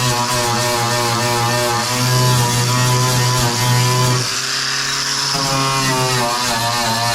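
Handheld electric power tool with a wire brush scouring rust off the aluminium hull. The motor runs with a steady hum that wavers as the brush bears on the metal. Its pitch shifts about four seconds in as the load changes.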